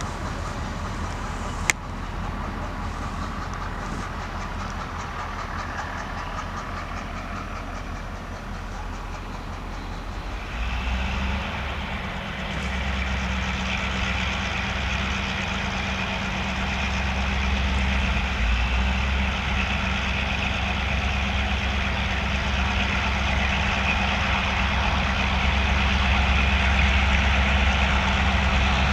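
Diesel locomotive engine running steadily. About ten seconds in its sound steps up to a stronger, deeper drone, and it grows gradually louder toward the end. A single sharp click about two seconds in.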